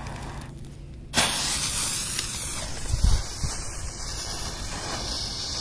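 A coloured smoke bomb catches and hisses as it pours out smoke. The hiss starts suddenly about a second in and then runs on steadily. There is a low thump about three seconds in.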